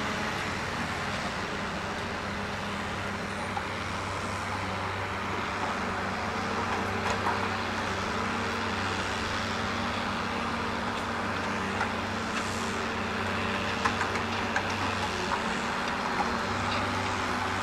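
Ponsse Buffalo Alpine forestry forwarder's diesel engine running at a steady pitch while its hydraulic crane swings out and the grapple reaches for a log. A few light knocks come in the second half.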